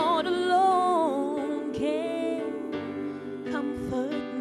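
Female gospel singer holding the word "Lord" into a handheld microphone, the note bending and wavering in a long melismatic run over an instrumental backing of held chords and bass.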